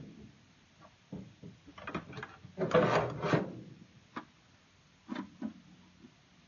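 Plastic paint bucket with a deer-feeder spinner unit on it being handled and turned over: a few short scrapes and rubs, loudest about three seconds in, then a couple of light knocks.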